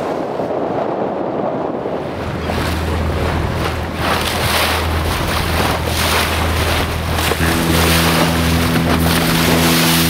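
Water rushing and splashing along the hull of a yacht under way, with wind buffeting the microphone and the engine's low steady drone underneath. A steadier hum of several held tones joins about seven seconds in.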